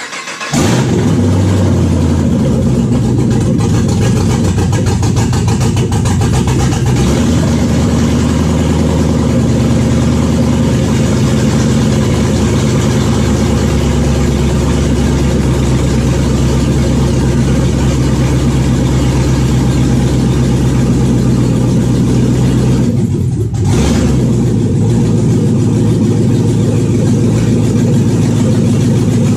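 Chevrolet LS3 6.2-litre V8, swapped into a 1953 Chevrolet Bel Air, catching on the starter and then running steadily on its first start. The sound dips briefly about 23 seconds in and then carries on.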